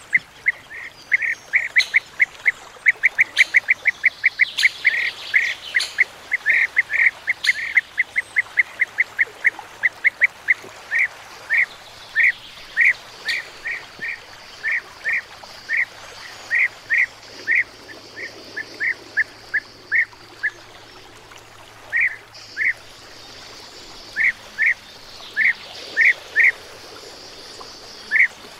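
A flock of European bee-eaters calling: short, repeated calls, rapid and overlapping at first, then thinning out to a call or two a second with short pauses.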